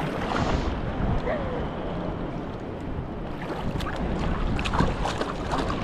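Steady rush of river water around an inflatable raft, with wind buffeting the microphone.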